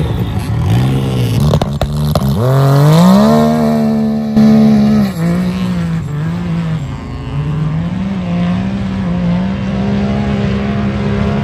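Can-Am Maverick X3 UTV's turbocharged three-cylinder engine revving hard. Its pitch climbs steeply about two seconds in and holds high, then rises and falls repeatedly with the throttle.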